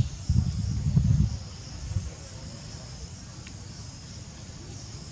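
Steady high-pitched drone of insects, with a low rumble for about the first second that then drops away.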